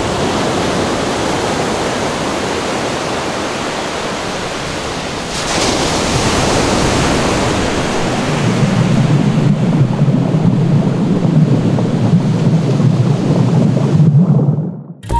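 Ocean waves surging with a steady rush of surf noise, a whoosh about five and a half seconds in, and a low rumble joining from about eight seconds. The sound cuts off abruptly just before the end.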